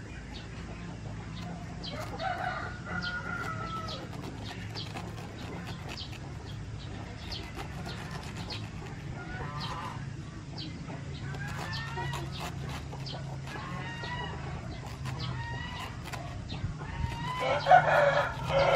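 Chickens clucking and crowing in short repeated calls, with a louder burst of calls near the end, over light clicks of a knife cutting pineapple on a wooden board.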